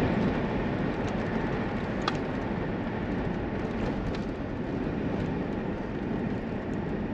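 Steady engine and road noise of a vehicle driving at an even speed.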